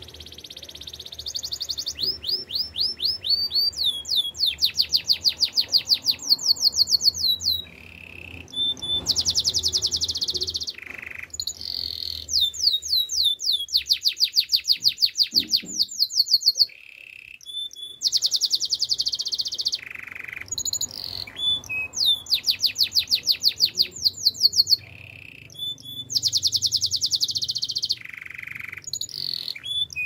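Canary singing a long song of fast trills, each phrase a quick run of repeated high notes, with short pauses and a few lower single notes between phrases.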